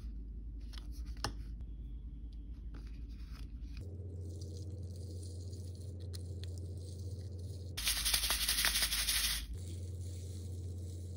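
Plastic toy packaging being handled: small clicks, taps and rattles from a hard plastic L.O.L. Surprise ball and the wrapped packets inside it. About eight seconds in, a plastic wrapper crinkles loudly for a second and a half. A steady low hum runs underneath.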